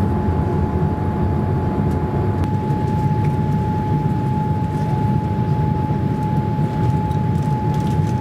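Cabin noise of a Boeing 787 Dreamliner climbing after takeoff, heard from a window seat over the wing: a steady deep rumble of engines and airflow with a steady high whine running through it.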